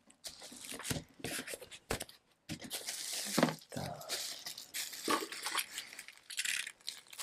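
Plastic bubble wrap being handled and pulled off a packed item, irregular crinkling and rustling with small clicks.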